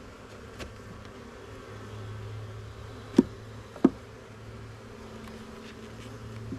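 A swarm of honeybees buzzing steadily around an open hive. Two sharp knocks a little over half a second apart, about three seconds in.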